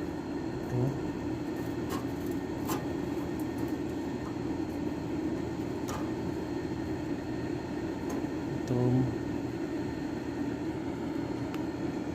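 A steady low mechanical drone, with a few light clicks about two, three and six seconds in.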